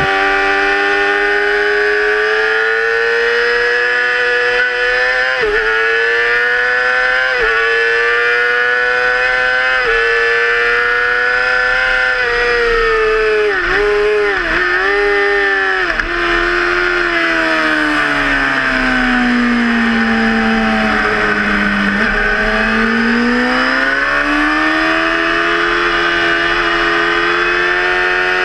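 Yamaha YZF-R6 inline-four sport bike with an aftermarket Hindle exhaust, heard from an onboard camera at racing speed. The revs climb and fall sharply with three quick upshifts in the first ten seconds or so. A string of downshifts with throttle blips comes around the middle, then the revs sink low through a corner and pull back up hard.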